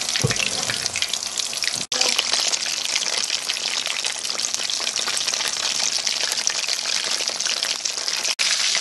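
Battered chicken pieces frying in hot oil in a pan: a steady, dense sizzle and crackle, broken for an instant twice, once about two seconds in and once near the end.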